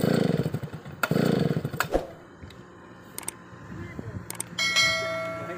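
New Stihl 070 two-stroke chainsaw being pull-started: two hard pulls on the starter cord, each a burst of rapid cranking pulses under a second long, without the engine catching, followed by a sharp click. Near the end a steady high-pitched tone sounds for about a second.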